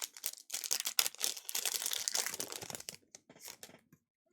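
A trading-card pack's plastic foil wrapper being torn open and crinkled, a dense crackle of small clicks and rustles that is busiest from about half a second to three seconds in, then thins out.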